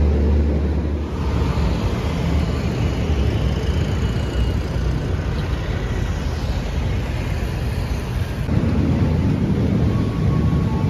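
Electric passenger trains running, heard in short cuts. A low hum from a train pulling out of a platform stops in the first second. Street traffic noise follows, with a train on an elevated line. Near the end a low rumble returns as a commuter train moves through a station.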